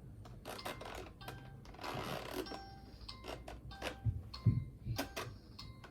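A run of sharp clicks and short electronic beeps at several pitches, with a brief rustle about two seconds in and a couple of dull thumps near the end.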